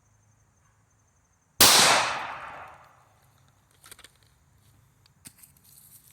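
A single gunshot from a North American Arms mini revolver in .22 Magnum, firing an Aguila soft-point round, about a second and a half in. Its report trails off over about a second, and a couple of faint clicks follow.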